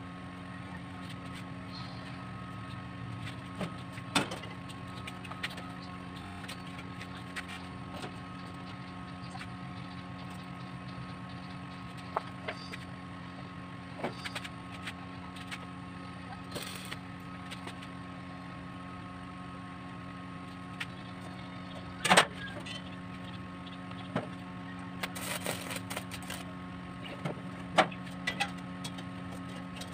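A steady machine hum runs throughout, with scattered sharp knocks and clatters of square steel tubing being handled and set in place on the frame; the loudest knock comes about two-thirds of the way through, followed by a short cluster of smaller clanks.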